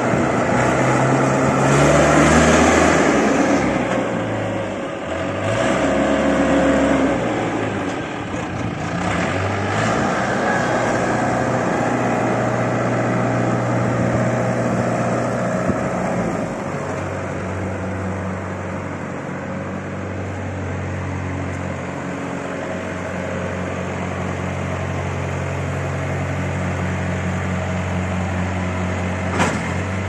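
XCMG XT740 skid steer loader's diesel engine running, its pitch rising and falling through the first half as the machine is driven, then settling into a steady run. A single sharp click near the end.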